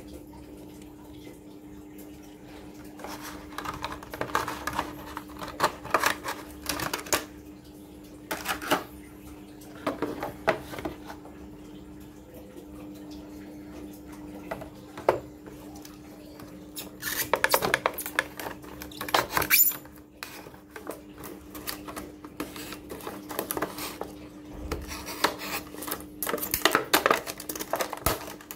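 Hands handling a die-cast toy car and then a stiff plastic blister pack on its cardboard card: irregular clicks, crinkles and crackles in scattered clusters, loudest as the blister is pulled off the card near the end. A steady hum runs underneath.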